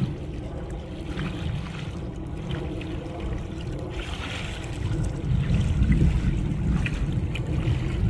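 Wind buffeting the microphone over choppy lake water: a steady low rumble that grows stronger about five seconds in.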